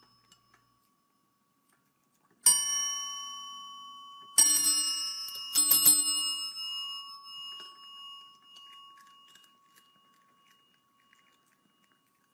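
Chrome desk service bells struck by a cat's paw: four bright dings, the last two in quick succession, each ringing on and slowly fading.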